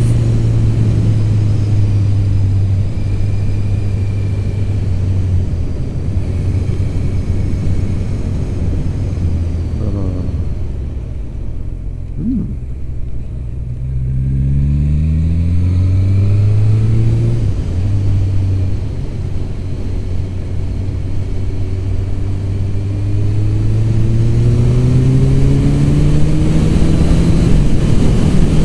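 Honda CB 1000 motorcycle's inline-four engine, heard from the rider's seat: steady cruising, then falling in pitch as it slows about ten seconds in, and climbing again as it accelerates away through the gears, with another rise near the end.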